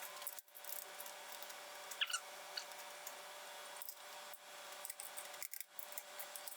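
Light metallic clicks and scrapes of hand tools working the rocker arm valve lash adjusters on a Toyota 22RE cylinder head as they are backed off, with a short squeak about two seconds in, over a faint steady hum.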